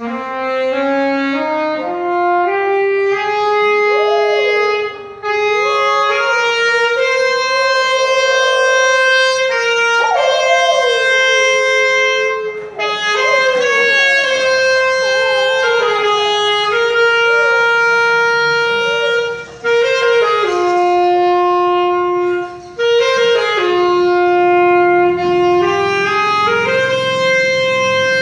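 Saxophone playing a slow melody of long held notes in phrases, with brief breaths between them. A dog howls along at times, its pitch wavering up and down beneath the saxophone.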